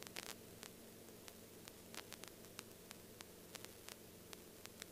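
Near silence: faint static hiss and low hum on the headset intercom audio, with scattered faint clicks.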